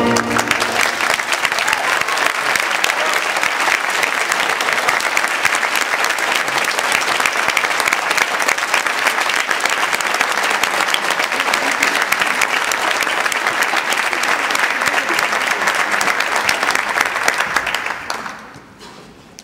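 Audience applauding steadily as the music ends, then dying away quickly near the end.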